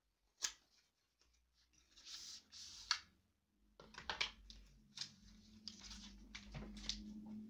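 Cardboard and paper packaging being handled: rustling, sliding and sharp taps and clicks as the card sleeves and band box are pulled out and set down. A low steady hum comes in about halfway through.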